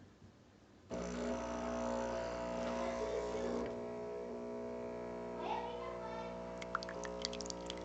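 Nespresso VertuoPlus coffee machine brewing: a steady motor hum starts about a second in as the capsule is spun, with small ticks and drips near the end.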